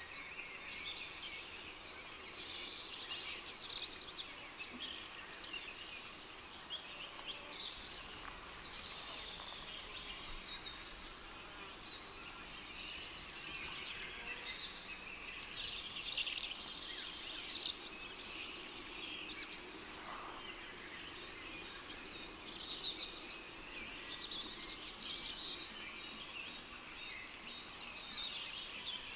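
A cricket chirping in a steady, even train of high chirps that breaks off about halfway and then resumes. Scattered bird calls and chirps run underneath it, in a rainforest ambience.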